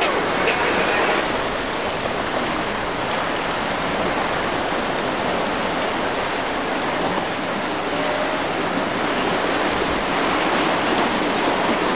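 Rough-sea waves and surf, a steady rush of water noise.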